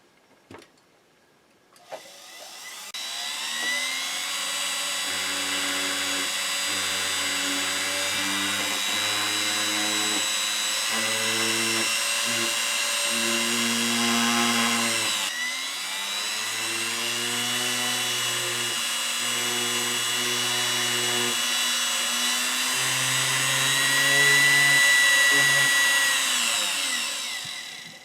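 SE flex shaft grinder running, its hanging motor turning the handpiece through the flexible shaft. It winds up about two seconds in, with its speed shifting in steps under the foot pedal, dips and spins back up about halfway, runs loudest near the end, then winds down.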